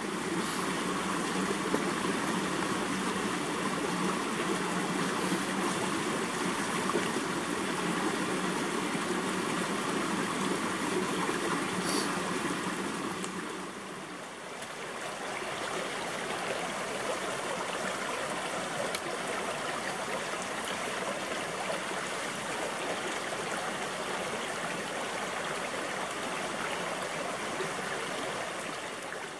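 Shallow mountain creek rushing and rippling over rocks in a steady wash of water sound, dipping briefly about halfway through.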